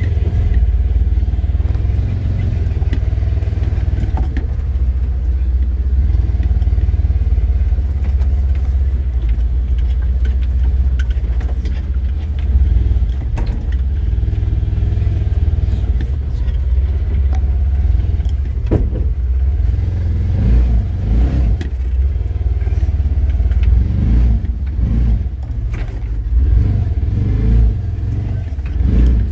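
Engine of a side-by-side utility vehicle running steadily as it drives a rough trail, a continuous low drone with scattered rattles and clatter from the vehicle. In the last third the engine note rises and falls more.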